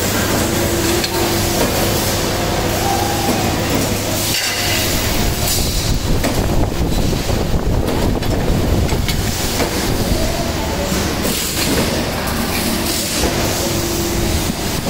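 Muratec 80-ton CNC press brake running: a steady low hum under a continuous noisy mechanical rumble, with no separate strokes.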